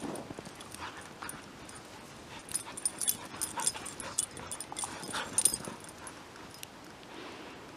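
Two dogs play-fighting in snow: dog vocal sounds and scuffling, with a flurry of short sharp sounds through the middle, loudest about two-thirds of the way through.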